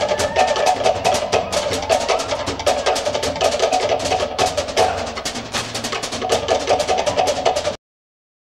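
Cook Islands drum-dance ensemble playing a fast, dense rhythm on wooden slit drums (pate) over a deeper bass drum. The sound cuts off abruptly near the end.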